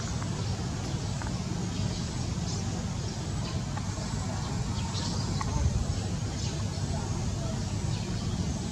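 Steady low outdoor background rumble with scattered faint short ticks and chirps.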